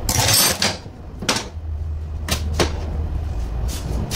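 An electric drill being set down and handled on a workbench: a short scraping rustle, then a few separate knocks and clunks.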